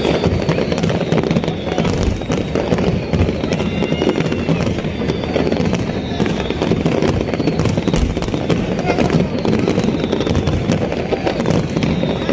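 Aerial fireworks display: many shells bursting in rapid succession, a continual run of sharp bangs and crackles over a deep rumble.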